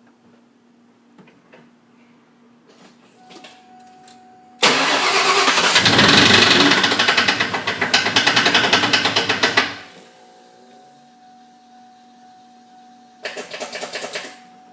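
A vehicle being started makes a terrible, loud, harsh clattering noise for about five seconds, then a second, shorter burst near the end. The owner puts the noise down to the clutch pedal being disengaged rather than the motor knocking itself to death.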